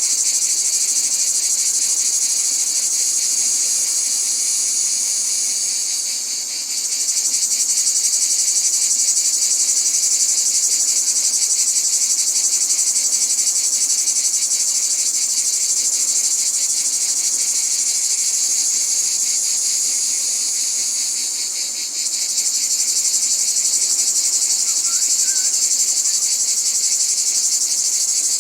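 Cicadas singing: a continuous, loud, high-pitched buzz of very rapid pulses that fades slightly twice, about six seconds in and about 22 seconds in, then jumps straight back to full strength.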